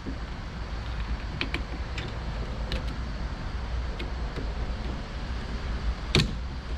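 Scattered light clicks and taps of the door latch assembly and tools being handled as it is worked free of the car door, with a louder knock near the end, over a steady low rumble.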